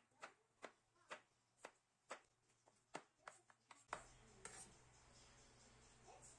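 Chef's knife chopping garlic on a bamboo cutting board: about ten faint, sharp knocks of the blade on the wood, coming faster just before they stop about four seconds in. A low steady hum follows.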